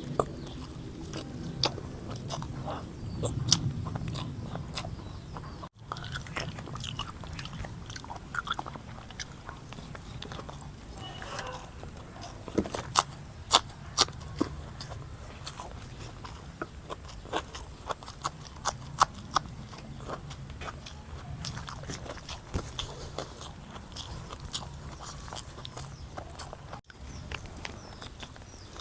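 A person eating chicken biryani with curry and raw salad close to the microphone: irregular chewing and biting, with many short, sharp mouth clicks and smacks. The sound drops out briefly twice.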